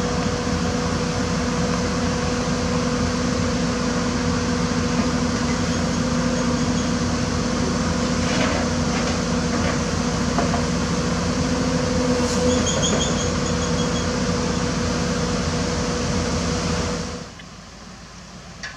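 Hyundai Robex 220 crawler excavator's diesel engine running steadily under hydraulic load as the boom and bucket are moved. The sound drops off sharply near the end.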